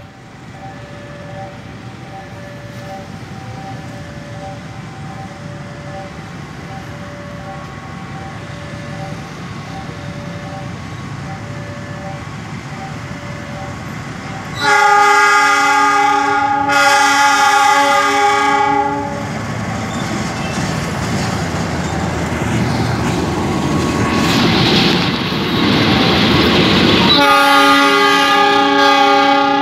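A repeating two-note electronic warning chime sounds while a diesel locomotive's rumble grows louder. About halfway through, the locomotive's air horn gives two long blasts in close succession. The engine and wheels run past loudly, and another long horn blast comes near the end.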